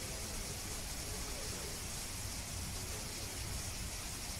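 Steady background hiss and low rumble, with faint voices of people in the distance.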